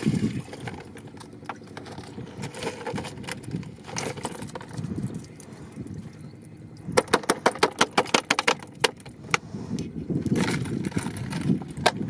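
Water pouring and splashing off a PVC plastic shrimp cage lifted from the river, with handling knocks on a wooden boat; about seven seconds in, a quick run of sharp clicks and taps as the catch is emptied from the cage into the boat.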